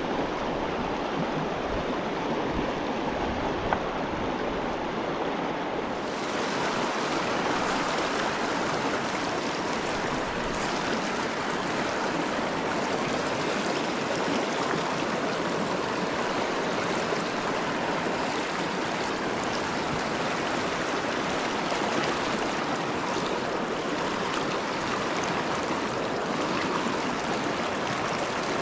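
Steady noise of a mountain river's flowing water, the Upper Provo River running over its rocks.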